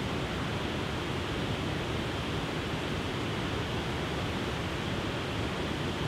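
Water spilling over a wide, stepped waterfall and rushing into the river below: a steady, even rushing.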